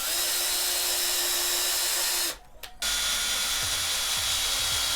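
Electric drill running steadily on the wooden bars of a frame, stopping briefly about two seconds in and then starting again.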